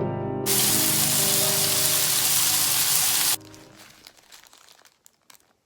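A loud, steady hiss over soft piano music, starting about half a second in and cutting off abruptly about three seconds later; after it comes near silence with a few faint clicks.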